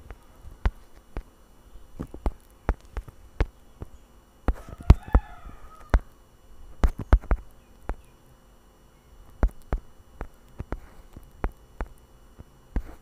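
Irregular clicks and taps, a finger tapping a phone touchscreen. A brief high warbling chirp comes about five seconds in.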